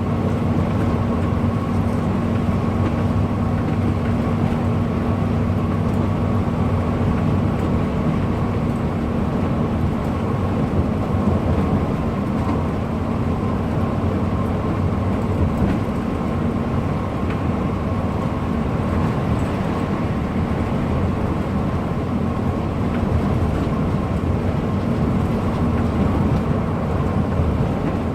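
Bus running steadily at speed: a constant engine drone with a steady hum and road rumble, with no change in pace.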